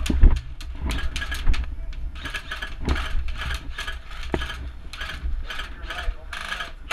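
Rapid ratchet clicking in short repeated runs, the sound of an airsoft high-capacity magazine's winding wheel being turned, with a few sharper knocks among it.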